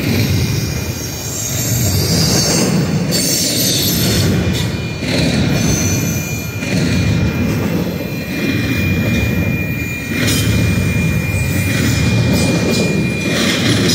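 Double-stack container train's well cars rolling past at speed: a steady rumble of steel wheels on rail, with a thin high wheel squeal coming and going.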